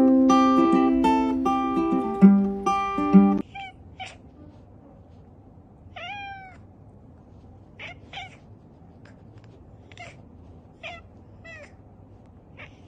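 Plucked-string music, ukulele-like, that cuts off about three seconds in. Then a cat gives a series of about ten short, high meows, several falling in pitch, one near the middle longer than the rest.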